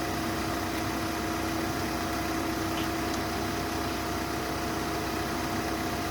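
An engine idling steadily, a constant hum that holds one pitch throughout.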